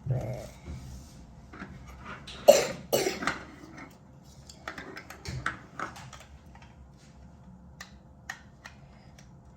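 A person coughs twice, about two and a half and three seconds in, amid light clicks and knocks.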